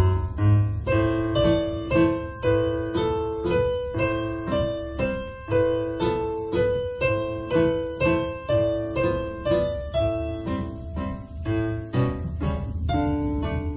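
Digital piano played four hands as a duet: a waltz in a steady, regularly accented rhythm with a run of separate notes and chords.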